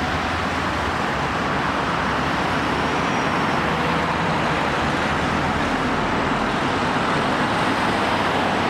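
Steady road traffic noise from cars and lorries on a dual carriageway: an even rush of tyres and engines with no single vehicle standing out.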